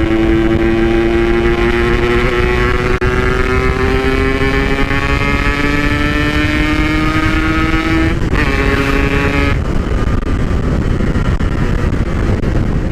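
Yamaha RX-King two-stroke single running through a PK1 packing-power exhaust under way, its note climbing steadily for about eight seconds as the bike accelerates. It then breaks off briefly for a gear change and comes back at a lower pitch, over steady wind rush.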